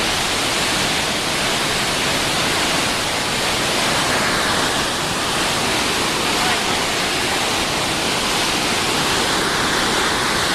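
Trümmelbach Falls, a glacier-fed waterfall pouring out of a tunnel in the mountain, crashing down in a loud, steady rush. Thousands of litres a second pour through, carrying rock.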